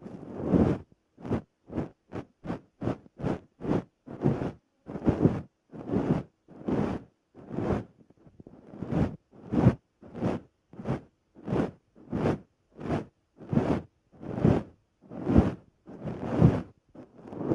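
Silicone brush stroked repeatedly across a microphone: a rhythmic swishing, about one to two strokes a second, with a quicker run of short strokes a couple of seconds in.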